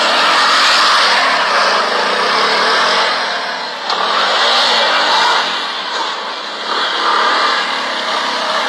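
Small motorcycle engine revving up and down under a loud noisy hiss while the bike is spun in tight circles. The sound dips briefly twice, about four and six seconds in.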